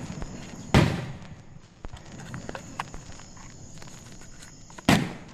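Aerial fireworks shells bursting: two loud booms about four seconds apart, each echoing briefly, with fainter pops and crackles in between.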